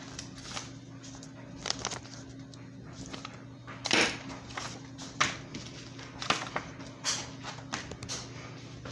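Paper and padded paper mailer envelopes being handled: scattered, irregular rustles and light taps, over a steady low hum.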